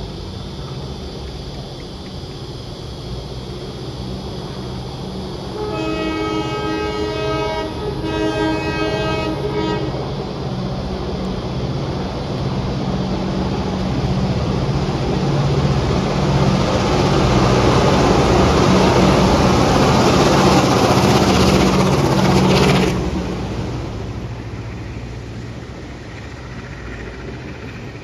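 Two 1960s NSW 42 class streamlined diesel locomotives passing under power. Their multi-note horn sounds in three blasts, one long then two short. Then the two-stroke EMD diesel engines grow loud as the locomotives pass and drop off suddenly, leaving the quieter rumble and clatter of carriages rolling by.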